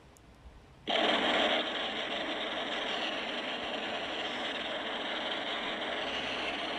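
Designed monster sound effect for a polar-bear kaiju: a steady, pitchless, noisy sound that starts abruptly about a second in and holds level.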